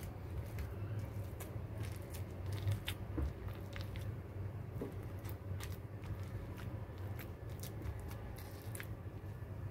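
Stone pestle pressing soft cooked green eggplants against a stone mortar: soft squishing with scattered small clicks of stone on stone, over a low steady hum.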